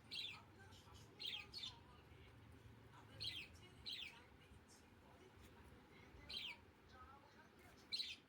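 Faint bird chirps: short, quick down-slurred notes, singly and in pairs, every second or two over a low background hum.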